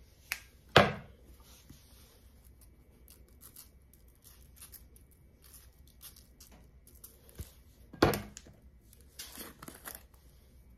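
Seasoning bottles being handled on a granite countertop: two sharp knocks as bottles are set down, one about a second in and one near the end. Between and after them come light clicks and rattles of shaker bottles, with a short rustle near the end.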